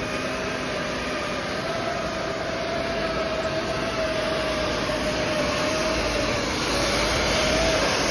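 Yecheng YC-2018DZ hot air welding machine running as it seals PVC spiral ducting: a steady rush of blown hot air with a mid-pitched motor whine that wavers slightly in pitch.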